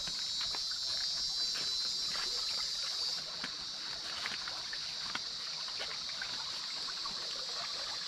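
Footsteps and brushing through dry leaves and undergrowth, with irregular crackles and snaps, over a steady high hiss that drops off about three seconds in.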